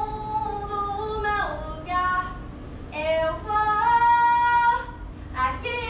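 A high voice singing a slow melody in long held notes, the longest held near the middle.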